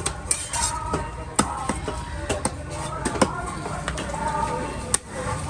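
Irregular sharp knocks, about eight or nine, typical of a heavy knife chopping through a diamond trevally on a cutting block, over a background of voices and faint music.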